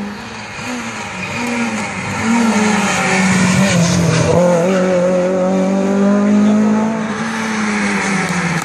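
Renault Clio rally car's engine at high revs as it passes close on a rally stage, its pitch wavering with throttle and gear changes; the sound builds about two seconds in and eases near the end.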